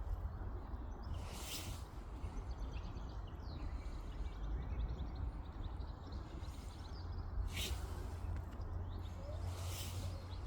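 Wind rumbling on the microphone outdoors, with faint bird chirps and three brief whooshes: one early, two near the end.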